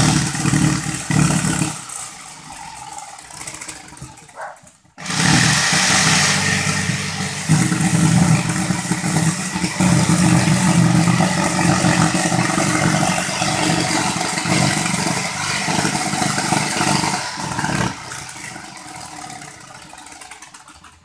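Corded electric jigsaw cutting through an MDF sheet, the blade sawing steadily. It eases off about two seconds in and stops briefly near the five-second mark, then cuts again steadily until it tails off near the end.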